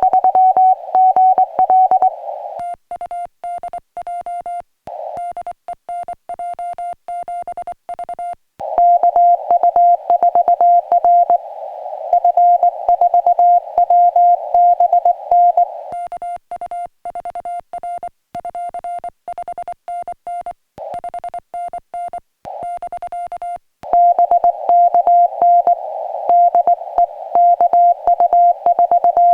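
Morse code (CW) audio from a portable ham radio: a single steady beeping tone keyed on and off in dots and dashes during a contact. In some stretches the tone is louder and sits in a band of receiver hiss; in others it is quieter and clean, like the operator's own sidetone while sending with the paddle.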